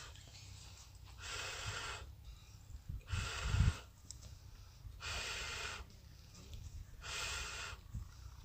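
Balloon sound-effect toy giving short rasping, breathy noises, one about every two seconds, each under a second long.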